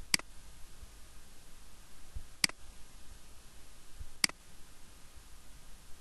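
Three sharp computer mouse clicks, about two seconds apart, over a steady low hiss.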